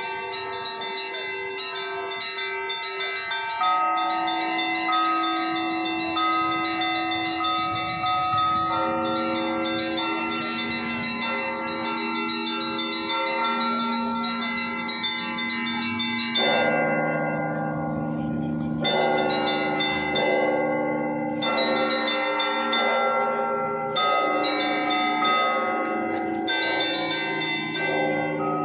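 Russian Orthodox church bell ringing (zvon) from the bells of Novodevichy Monastery: several tuned bells struck in a continuous rhythmic peal, their tones ringing on and overlapping. Deeper, larger bells join in about sixteen seconds in.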